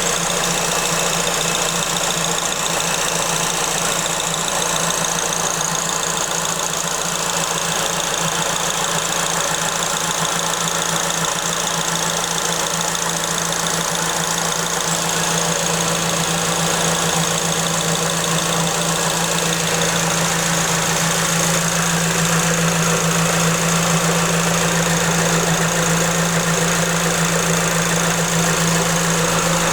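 Supercharged Suzuki Swift Sport ZC31S 1.6-litre four-cylinder engine idling steadily, with a steady high-pitched tone over the engine note from the supercharger's belt drive.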